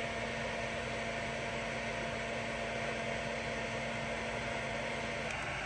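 Wagner heat gun running steadily at its 650-degree setting, an even blowing hiss with a low hum. The hum drops out about five seconds in.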